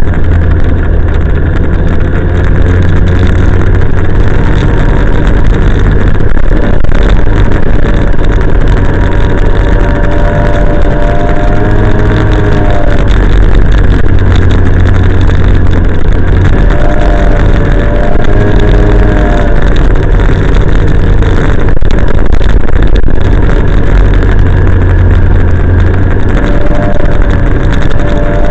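Snowmobile engine running loud and close while under way, heard from on board, its pitch rising and falling three times as the throttle changes: about a third of the way in, past the middle, and near the end.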